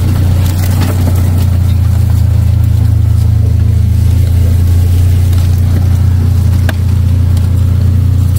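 Vehicle engine running steadily with a constant low drone while driving, a faint click or two over it.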